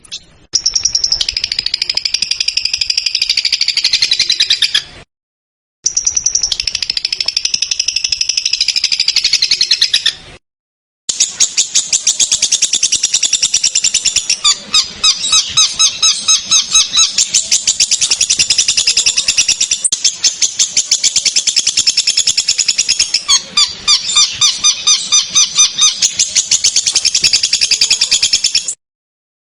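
Songbird song from an edited masteran tutoring recording for competition birds. Two matching high, chattering phrases come first, then after a short silent gap a long run of fast, sharp repeated notes. Each segment cuts off suddenly into silence.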